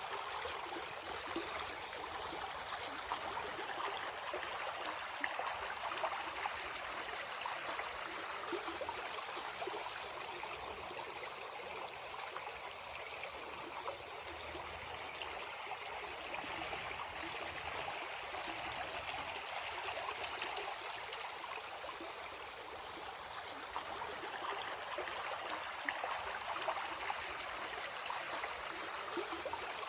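Creek water running steadily over rocks, a continuous gurgling rush with small splashes and trickles.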